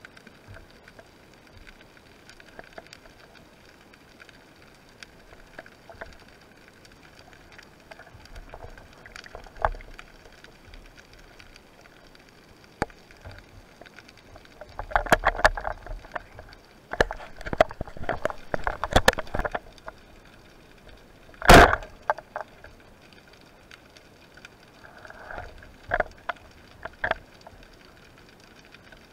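Underwater handling noise from a speargun and its spear shaft: scrapes and knocks in two busy bursts near the middle, then one sharp loud knock, over a faint steady crackle of clicks in the water.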